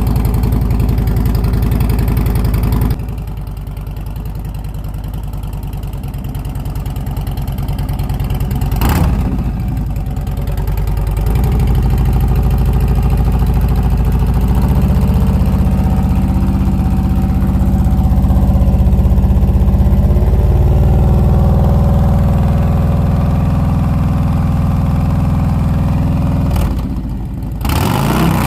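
Harley-Davidson Road Glide ST's Milwaukee-Eight V-twin running through a newly fitted aftermarket exhaust, engine speed changing: it drops about three seconds in, rises and falls quickly around nine seconds, then pulls steadily louder, with a sharp blip near the end.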